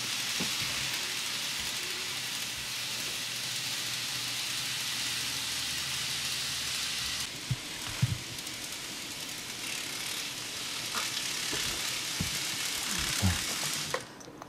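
Motor-driven N-gauge model of the 800 series Shinkansen running around its track, a steady whirring rattle. A little past halfway it drops off sharply, leaving a fainter hiss with a few soft thumps and rustles as a small child stirs under a blanket.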